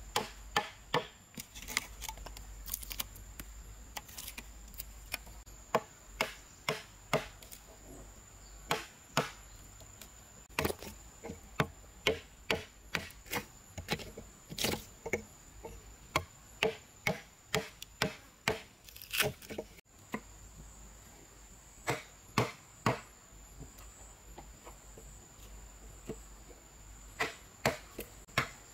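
A mallet drives a steel chisel into a solid timber beam to chop out a mortise: sharp, separate knocks of wood on wood, often in quick runs of two or three, with short pauses between them.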